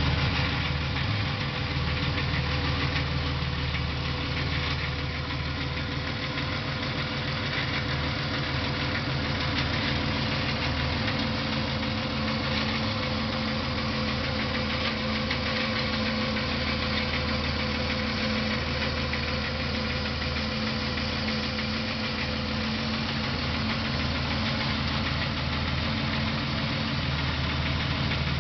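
Buick LeSabre engine idling steadily with a rapid, even knock running through it, the sound of what the owner calls a bad motor.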